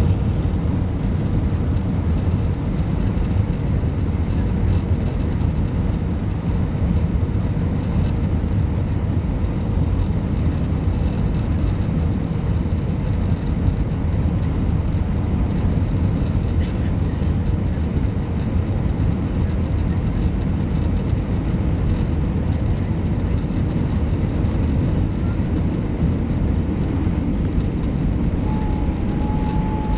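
Steady cabin noise inside an Airbus A320 on its landing approach: a constant low roar of engines and rushing air, with a faint steady whine above it.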